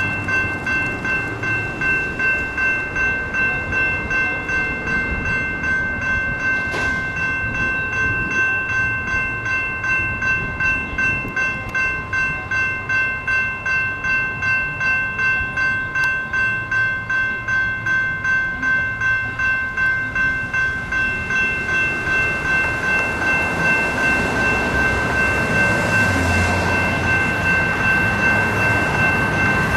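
General Signals Type 2 electronic railroad crossing bell ringing steadily at about two strikes a second, the warning that the crossing is activated for an approaching train. In the last several seconds the rumble of the approaching light rail train rises under it and partly masks the strikes.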